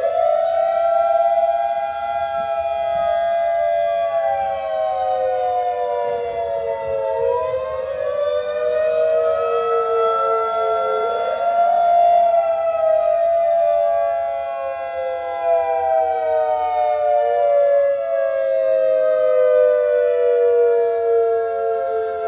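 Federal Signal 2001-130 dual-tone outdoor warning siren sounding in a test. Its chord slides slowly down in pitch and sweeps back up several times, with overlapping glides.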